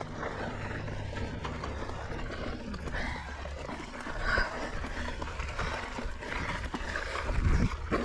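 Mountain bike being ridden on a rocky dirt trail: a steady low rumble of wind on the microphone and tyres over dirt, with the rider's hard breathing and a louder rumbling surge near the end.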